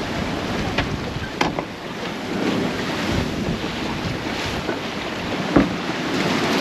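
Wind buffeting the microphone over the rush of waves and water along a sailboat running downwind in a fresh breeze, with a few sharp knocks, the loudest about five and a half seconds in.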